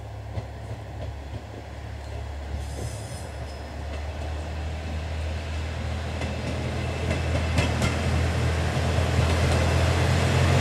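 JR Shikoku Kiha 1000 series diesel railcar running slowly over the points toward the listener, its diesel engine drone growing steadily louder as it nears. There are a few wheel clicks over the track joints about three-quarters of the way through.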